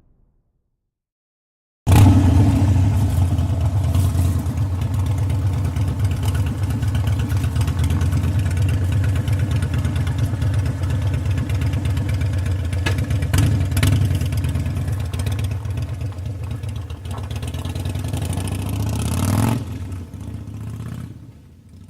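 Harley-Davidson V-twin motorcycle engine running, cutting in suddenly about two seconds in with a deep, low, steady sound. It swells slightly near the end, then drops off sharply and fades away.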